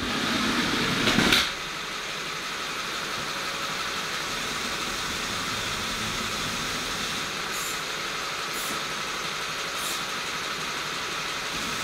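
Small electric motors and gearing of a motorised Lego train and gantry crane whirring. The whir is louder for the first second and a half, then runs on steadily, with three sharp clicks in the second half.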